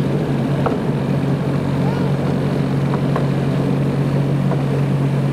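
Miniature railway train moving along the track, with the locomotive's engine giving a steady, even drone. A few faint clicks come through over it.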